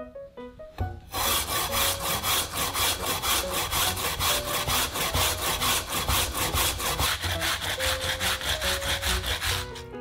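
A raw peeled potato being grated by hand on a white plastic grater: quick, even rasping strokes, about four to five a second, starting about a second in and stopping just before the end.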